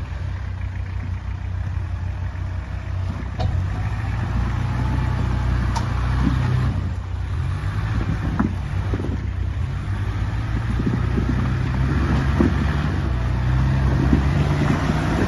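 Mitsubishi Pajero 4x4 engine running at low revs as it crawls over loose rocks, the revs rising and falling several times and getting louder near the end as it comes closer. A few sharp knocks are heard along the way.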